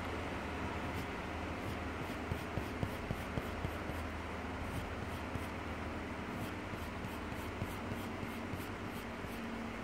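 Sharpened graphite pencil scratching on paper in quick, repeated short hatching strokes, over a steady low hum in the background.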